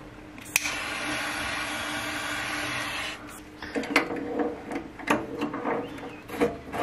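Servo cable connectors being handled and unplugged at a CNC control cabinet: a click, then about two and a half seconds of steady whirring, then a run of irregular clicks and knocks from the plug and cables, over a faint steady hum.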